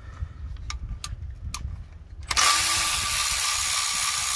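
A few light metal clicks. About two seconds in, a cordless power tool starts and runs steadily with a constant whine, spinning out a size 10 bolt on the shifter cable bracket.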